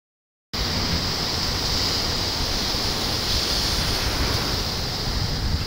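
Wind buffeting the microphone as a steady uneven rumble, over the hiss of small waves breaking on a sand beach; it starts about half a second in.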